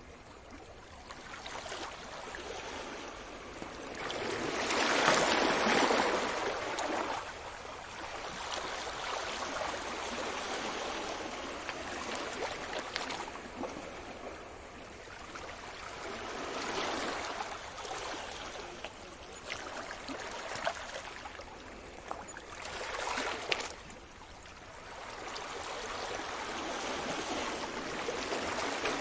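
Sea waves washing onto the shore, the surf swelling and fading in slow surges. The largest wave breaks about five seconds in, and smaller ones follow later.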